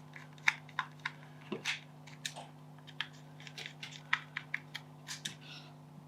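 Irregular small plastic clicks and taps, a couple of dozen in quick uneven succession, as the headphone's plastic housing parts are handled and pressed together.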